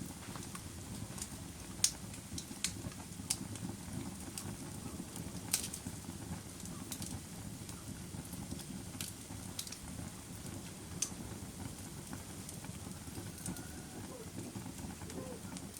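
Wood campfire burning: a steady low hiss of the flames with scattered sharp crackles and pops from the burning wood, a few of them louder than the rest.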